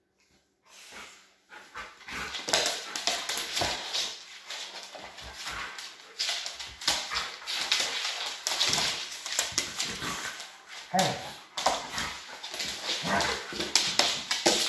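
A Doberman and a Rottweiler play-fighting: yips, whimpers and barks over the scuffle of bodies and claws on a hardwood floor, starting after a brief silence.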